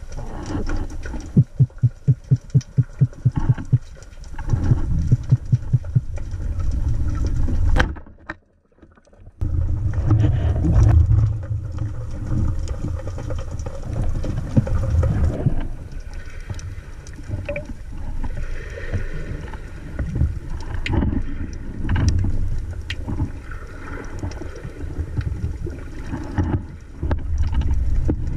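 Underwater sound picked up by a camera mounted on a speargun: a low, muffled rumble of water movement with a run of rapid, even thumps in the first few seconds, then scattered clicks and knocks.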